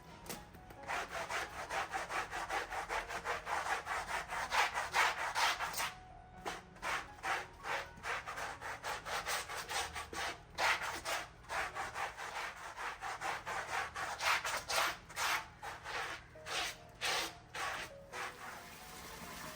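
Stiff brush scrubbing a soaked, soap-powdered mat in quick back-and-forth strokes, a few a second, with short pauses about six seconds in and again near the end.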